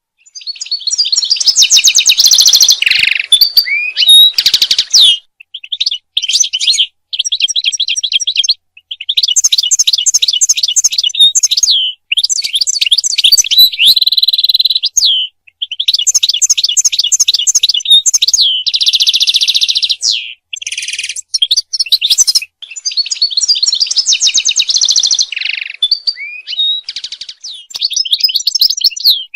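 European goldfinch singing: fast, high twittering phrases of a few seconds each, with short pauses between them and a few buzzy notes mixed in.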